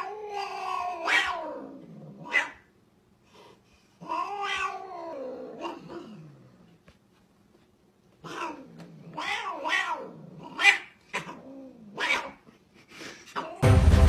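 Domestic cat yowling: two long, wavering, drawn-out calls, then a run of shorter rising-and-falling calls. Loud music cuts in at the very end.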